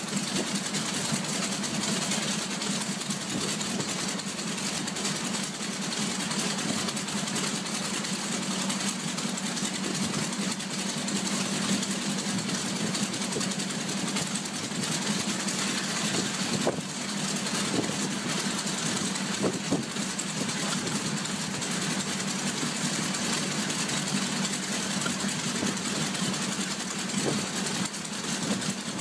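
Radial aircraft engine running steadily at idle on a ground test stand, with a few short sharp clicks in the second half.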